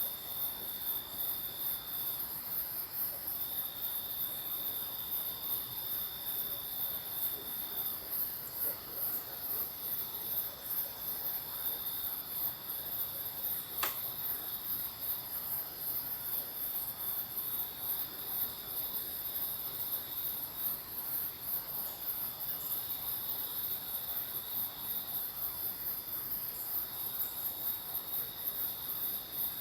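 Night insect chorus: crickets and other insects chirring, a dense, very high pulsing buzz over steady, slightly lower trills that drop in and out. A single sharp click about halfway through.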